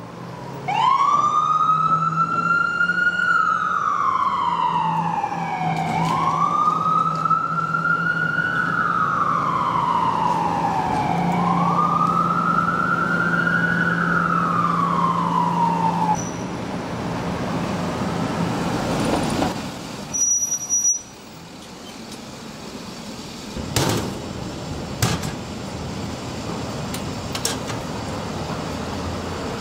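Ambulance siren wailing as the ambulance pulls away, in three slow cycles of about five seconds each, each a quick rise and a long fall. It cuts off about sixteen seconds in, leaving street traffic noise with a few sharp knocks.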